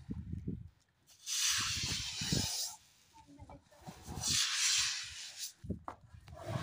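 A floor wiper (squeegee) pushed across wet terrace tiles, sweeping water along in two long swishing strokes, each lasting about a second and a half.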